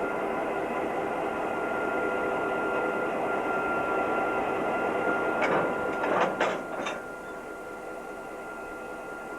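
Passenger train running, a steady noise with several steady tones through it. A few sharp knocks come just past the middle, after which the noise carries on at a lower level.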